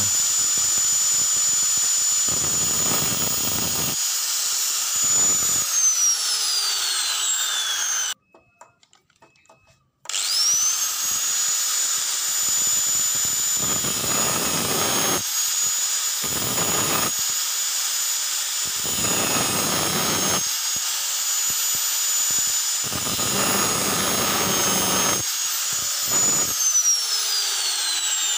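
Electric angle grinder running with a high whine while a used engine valve is pressed against its disc in several separate bursts of grinding, shaping the valve into a homemade valve-seat cutter. The grinder winds down about six seconds in and is briefly silent. It starts again about ten seconds in, spins up to speed, and winds down again near the end.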